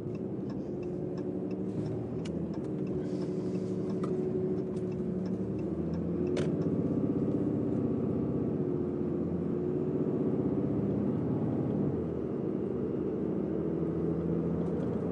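Car engine and road noise heard from inside the cabin while driving: a steady hum whose pitch drifts slightly, with a few faint clicks.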